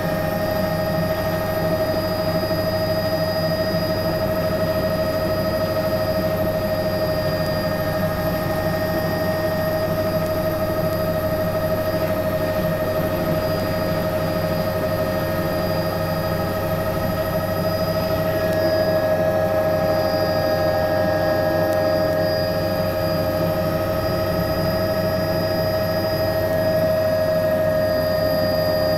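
Bell 206 JetRanger helicopter heard from inside the cabin while landing: the Allison 250 turbine gives a steady high whine over the rotor noise. It gets a little louder about two-thirds of the way through.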